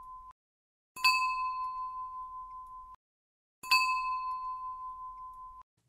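A bell-like ding sound effect, struck twice, about a second in and again near the middle. Each strike rings and fades for about two seconds, then cuts off sharply. The ringing tail of an earlier ding ends just at the start.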